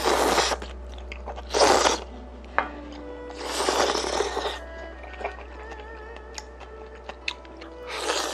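A man slurping noodles with chopsticks from a bowl of hot pot, in three loud slurps over the first half. These are followed by quieter chewing and small wet mouth clicks.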